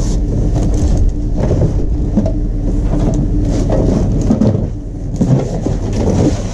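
A large cardboard box being lifted and shifted among discarded electronics: irregular rustling, scraping and knocking of cardboard and plastic, over a steady low hum.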